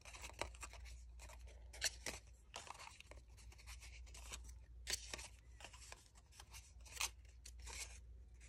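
Faint rustling and scraping of paper petals being pinched and rolled around a wooden dowel rod, with a few short, sharp crinkles scattered through.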